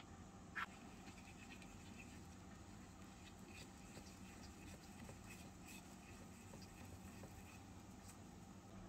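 A light clink about half a second in, then faint scraping and ticking of a miniature spoon stirring dry egg replacer powder in a tiny steel bowl.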